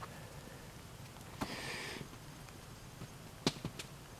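Faint handling noises as a beaver tail is laid into a frying pan: a few light knocks, and a short scraping rustle about a second and a half in.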